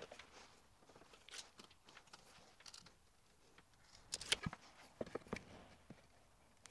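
Faint handling noise of hand tools against plasterboard: a tape measure and a spirit level, with soft rustles and scattered clicks. A quick run of sharp clicks comes about four seconds in, and a few lighter knocks follow.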